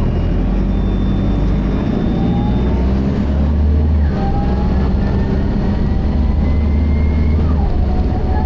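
Optare Solo bus pulling away on its Allison automatic gearbox: a steady low engine rumble, with a transmission whine that rises in pitch, drops back, then climbs again as the bus gathers speed. A thin high-pitched tone sounds for about two seconds, starting about a second in.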